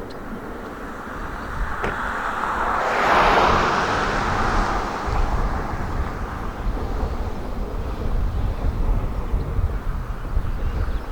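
Outdoor road noise: a vehicle passing, a noisy rush that rises and fades about three seconds in, followed by a steady low rumble.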